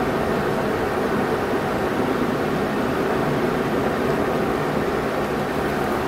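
Steady whooshing background noise with no distinct events, like a fan or air-handling noise in a room.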